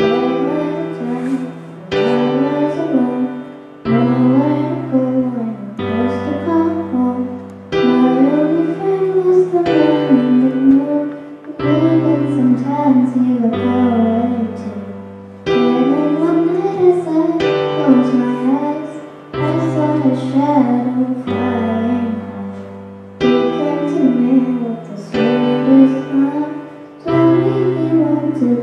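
A girl singing over a piano accompaniment. The piano strikes a new sustained chord about every two seconds.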